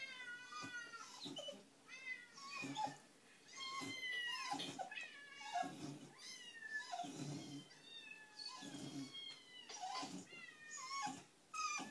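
Cats meowing over and over on a video played through a tablet's speaker: many short, high-pitched mews, often falling in pitch and sometimes overlapping.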